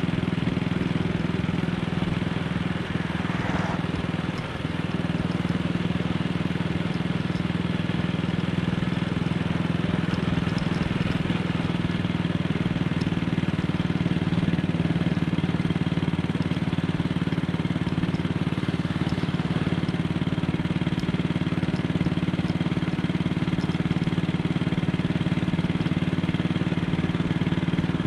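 AJS Model 8 motorcycle's single-cylinder engine running steadily at an even speed, without revving.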